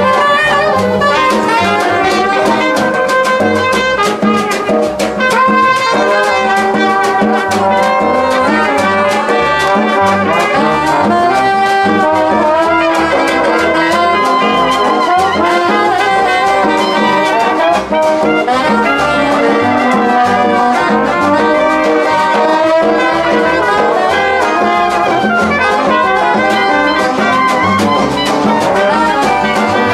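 A live brass band playing a tune, with trumpets and other horns carrying the melody over a regular beat.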